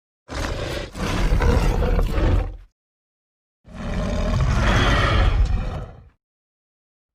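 Dinosaur roar sound effects for the Carnotaurus: two long, deep roars of about two and a half seconds each, separated by about a second of dead silence.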